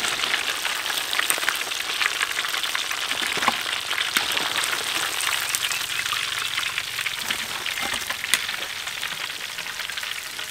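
Hot oil sizzling and crackling steadily around battered chicken pieces deep-frying in a large wok, with many small pops, as the cooked pieces are lifted out.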